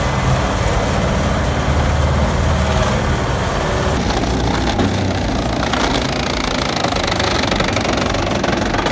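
A heavy wood-processing machine running under load: a steady engine drone with grinding and knocking noise. The sound shifts about four seconds in, turning harsher and brighter.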